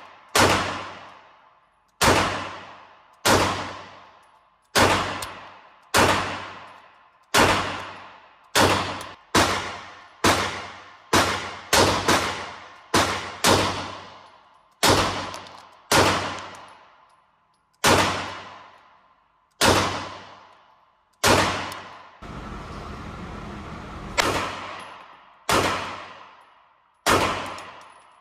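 A long string of single 9mm shots from a SIG P320 Spectre Comp pistol fired one-handed, about one to two a second, each followed by the echo of a concrete-ceilinged indoor range. A short steady noise fills one gap a little over two thirds of the way through.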